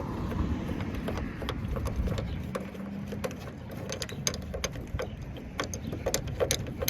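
Hand ratchet clicking in short, irregular runs while backing out a 10 mm door-handle bolt, with the clicks coming thicker in the second half.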